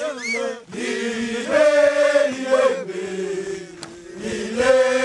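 A group of men chanting a song together, many voices holding long notes in unison. The song accompanies porters' and guides' dancing.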